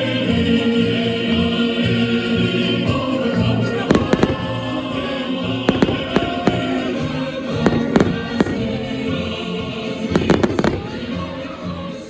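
Aerial fireworks going off in a string of sharp bangs, starting about four seconds in, with a quick cluster of bangs near the end, over steady festive music.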